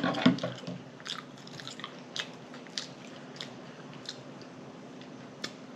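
Close-up chewing of a bun-less double cheeseburger, with wet lip smacks and mouth clicks. It is louder for the first moment, then settles into scattered sharp smacks every half-second or so.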